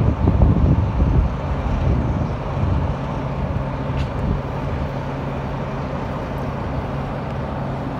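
Diesel-electric locomotive of CFR class 62 running under power as it pulls a passenger train out, a low rumble with a steady engine hum; the rumble is heaviest in the first couple of seconds, then settles.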